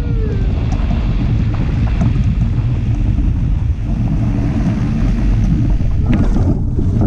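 Wind buffeting the microphone of a camera mounted on a hang glider's frame as the glider flies low and fast. It is a loud, steady low rumble throughout.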